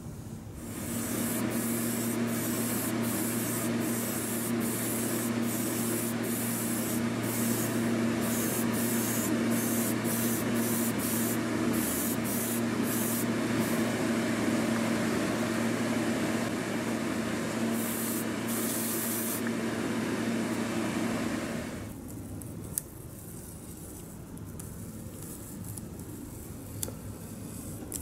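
Airbrush spraying paint onto a plastic model car body in short, repeated hissing bursts, over a steady motor hum. Hum and spraying stop about three-quarters of the way through, leaving a quieter room with a small click.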